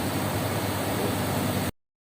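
Car engine idling steadily after being jump-started. The sound cuts off abruptly near the end.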